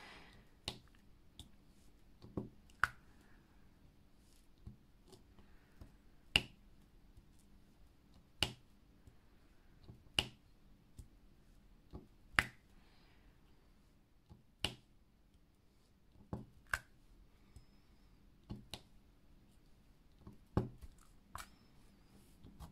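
Faint sharp clicks and taps, about one every two seconds, as a plastic multi-placer tool picks up resin diamond-painting drills and presses them onto the canvas.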